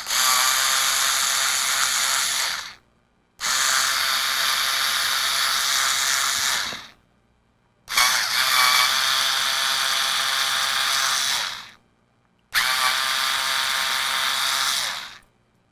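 Small electric power screwdriver running in four separate bursts of about three to four seconds each, backing out screws while a handheld CB radio is being taken apart.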